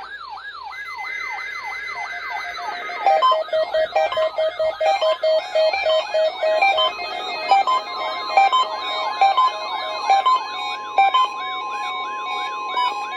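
Several NOAA weather radio receivers sounding their alert alarms together: a siren-like warble sweeping up and down about two and a half times a second, joined about two to three seconds in by fast stepped electronic beeps, with a steady tone added about halfway through.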